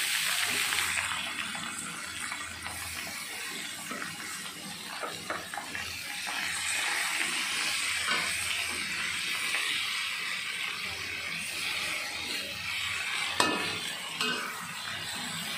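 Water spinach stir-fried in a wok: the greens sizzle in hot oil while a metal ladle stirs, scraping and clinking against the pan, with a sharper knock about thirteen seconds in.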